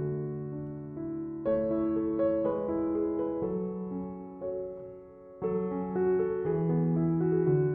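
Background music: soft piano playing sustained chords, with new phrases struck about a second and a half in and again past the midpoint.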